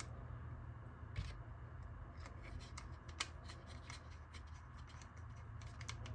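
Faint clicks and rubbing of small plastic parts handled by hand while fitting a quick release clip to an RC truck's plastic bumper, with two louder clicks about one and three seconds in, over a steady low hum.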